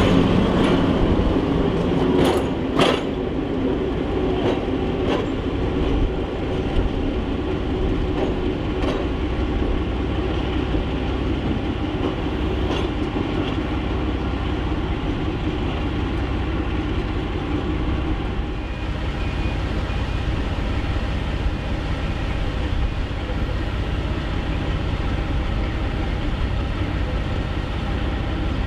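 Warship-class diesel-hydraulic locomotive D821 with its twin Maybach MD650 engines running, moving close by. A few sharp clicks and clanks come in the first three seconds, then a steady engine drone.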